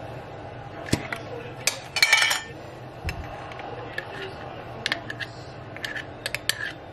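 Light clicks and clinks of a glass jar of Dijon mustard and a spoon being handled, with a louder clatter about two seconds in.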